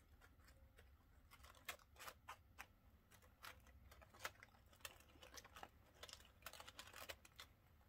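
Faint, scattered rustles and small ticks of fabric flower petals being pinched and shaped by hand, starting about a second in.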